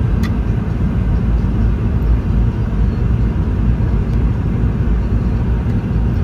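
Steady low rumble of the cabin noise aboard a Boeing 717 in flight, the sound of its engines and the airflow over the fuselage, heard from a window seat during the descent.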